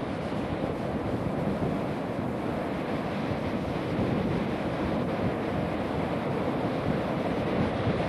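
Ocean surf breaking and washing onto a sandy beach, a steady rushing noise, with wind buffeting the microphone.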